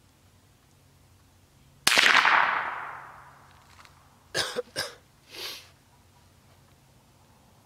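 A single shot from a .22 LR rifle: a sharp crack whose echo dies away over about a second and a half. About two and a half seconds later there are two short sharp sounds and a softer breathy one.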